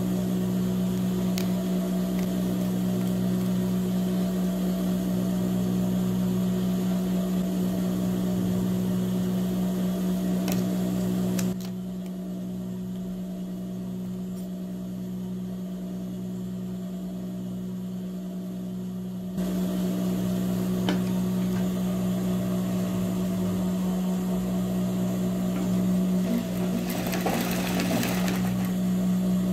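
Industrial lockstitch sewing machine (Juki DDL series) with its motor humming steadily while the machine stands idle. It drops a little quieter for several seconds in the middle. Near the end the machine starts stitching, a fast rattling run of needle strokes.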